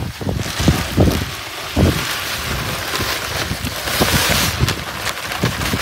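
Dry concrete mix pouring from a 60 lb sack into a cement mixer drum, a steady hiss that swells about four seconds in. Wind buffets the microphone throughout.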